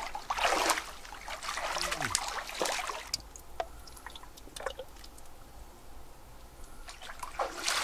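Shallow stream water splashing around wading legs for the first few seconds, then quieter trickling with scattered drips.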